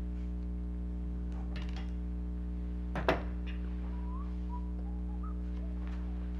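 A single sharp knock about three seconds in, over a steady low electrical hum, followed by a few faint short high whistle-like tones.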